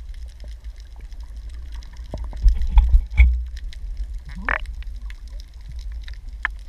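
Muffled underwater sound picked up through a camera's waterproof housing: a low rumble of moving water with knocks and bumps, the loudest just before the middle. About four and a half seconds in comes a short rising squeak.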